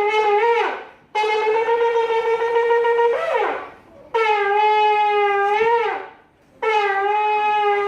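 Shofar blown in a series of long, loud blasts of about two seconds each, with a short gap between them. Each blast holds one steady note and ends with a quick bend in pitch.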